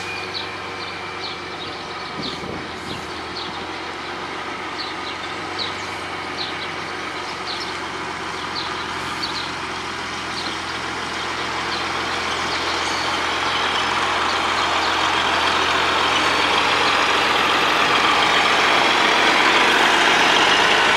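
Caterpillar 3406 inline-six diesel of a 1976 International 2070 twin-screw truck running at low speed while the truck manoeuvres, growing steadily louder over the second half as it draws nearer. Faint short high ticks repeat about every two-thirds of a second over the first half.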